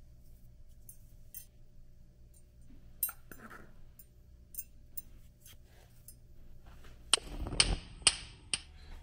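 Soft taps and clinks of spices being added to a small glass bowl. Near the end a gas stove burner's igniter clicks about twice a second and the burner lights with a short rush of flame.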